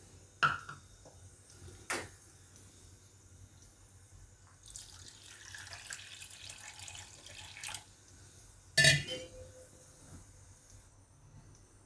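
Water poured from a jug into a plastic measuring cup, running for about three seconds in the middle. A couple of light knocks come before it and a louder sharp knock just after it.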